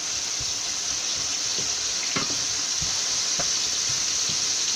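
Sliced red onions sizzling steadily in hot oil in a stainless steel pan, with a few light knocks of a wooden spatula stirring them.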